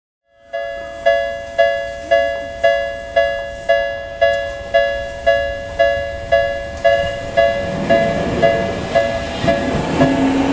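Japanese railway level crossing alarm starting up abruptly, ringing a two-tone 'kan-kan' strike about twice a second. From about seven seconds in, a Tokyu Ikegami Line train approaches: a rumble builds under the alarm, and a rising whine comes in near the end.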